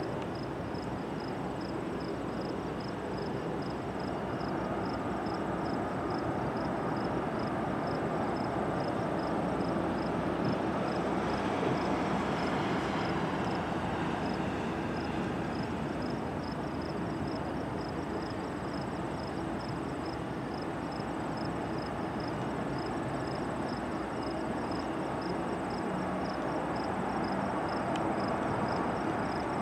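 Jet airliner engine noise at a distance, a steady rumble that swells and falls away about halfway through, with insects chirping in a steady rhythm.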